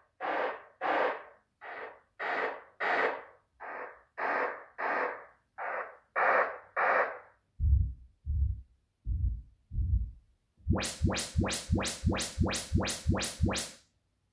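Yamaha YPAO room-calibration test signals played through home-theater speakers. First comes a steady run of short noise bursts, about one every 0.6 s, during the pre-check of the surround channels. About eight seconds in, four deep bursts come from the subwoofer. About eleven seconds in, a quick series of about ten rising sweep tones begins as the main measurement of the front left Polk Signature 60 tower starts.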